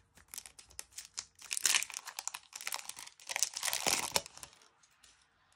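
Foil wrapper of a FIFA 365 trading-card booster pack being opened and crumpled in the hands: a dense crinkling crackle, loudest in two spells about one and a half and three and a half seconds in, dying away near the end.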